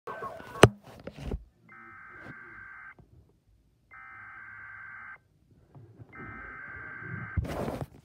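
Emergency Alert System SAME header: three bursts of warbling data tones, each a little over a second long and about a second apart, encoding a winter storm warning. A sharp knock comes about half a second in, and a burst of noise comes near the end.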